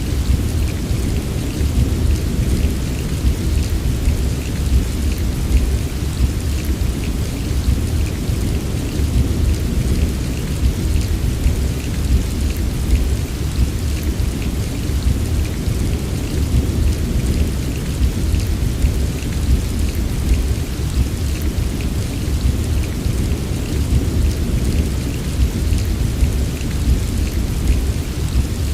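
Heavy rain falling steadily, the patter of drops over a deep, continuous low rumble.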